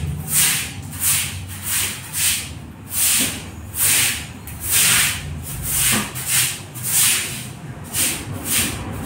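Broom swept across a wet tiled floor in quick strokes, a rasping swish about twice a second.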